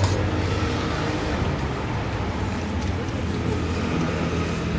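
Steady low hum under the constant background noise of a busy street, with no distinct event standing out.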